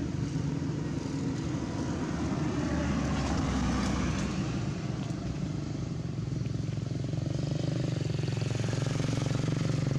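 Steady low engine hum of a motor vehicle, swelling briefly about three to four seconds in.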